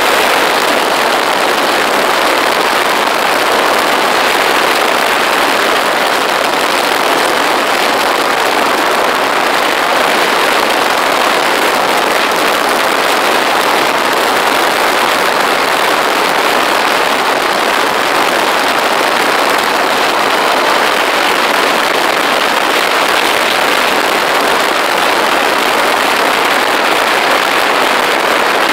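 Motorcycle riding at a steady road speed: a continuous, even rushing noise with no clear engine note or gear changes.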